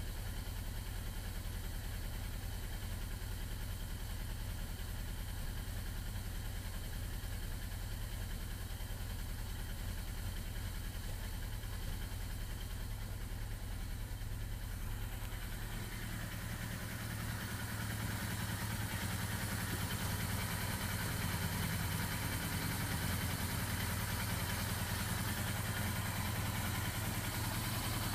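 Motorcycle engine idling steadily just after being started, growing louder about two-thirds of the way through.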